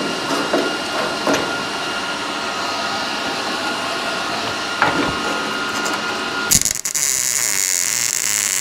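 Power-tool metalwork on a car's steel quarter panel: a steady whine with crackle, then a louder, brighter hiss in the last two seconds.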